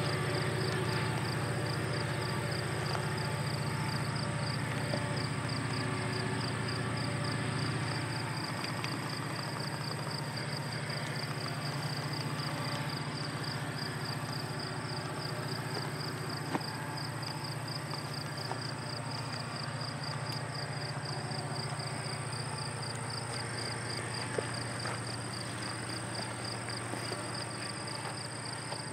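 Diesel locomotive's engine running with a low, steady drone that slowly fades as the train pulls away. An even, pulsing insect chirp keeps on throughout.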